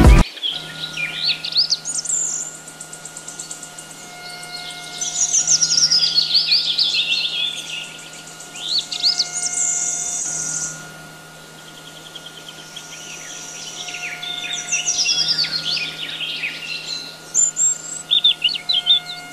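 Small birds chirping and twittering in quick, rising and falling calls, thick in some stretches and sparse in others, over a faint steady low hum.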